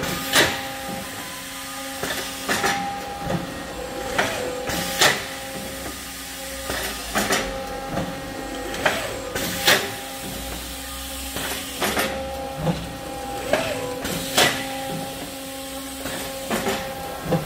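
Factory machinery running on a thermoforming plant floor: a steady hum with several held tones, broken every second or two by short, sharp hisses and clacks.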